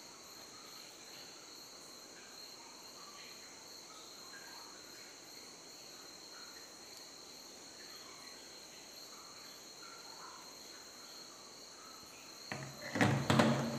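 Steady high-pitched insect chirring in the background, with a short louder burst of noise near the end.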